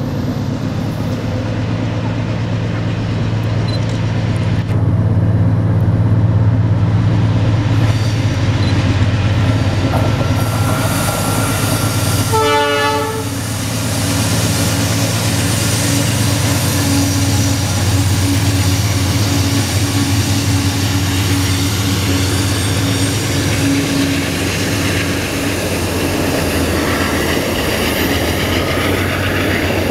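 GE Dash-9 diesel-electric locomotives of an empty ore train running past with a steady low engine drone, with the clatter of the empty ore wagons rolling over the rails.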